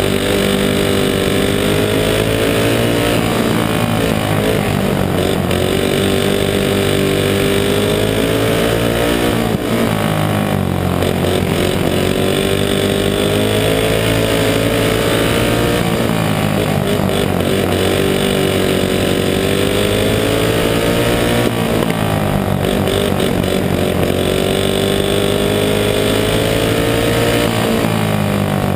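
Racing go-kart engine running hard, heard close up. Its pitch drops as the throttle comes off for each turn, then climbs again down the straight, in a cycle about every six seconds.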